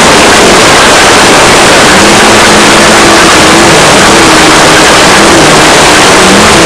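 Off-road race car at speed, heard from inside the car: the engine runs under load beneath a loud, constant wash of wind, tyre and chassis noise, with the engine note shifting up and down only faintly through it. The recording is overloaded throughout.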